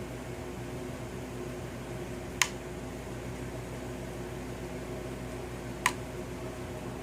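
Two sharp clicks about three and a half seconds apart over a steady electrical hum.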